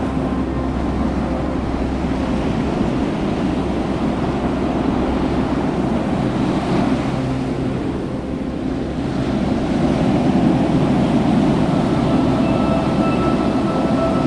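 Ocean surf and wind on the microphone, a steady rush of noise that grows a little louder after the middle, with faint held tones underneath that change near the end.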